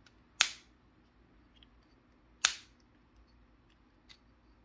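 Two sharp clicks about two seconds apart from the hinged lid of an Apple AirPods charging case being snapped and flipped by hand.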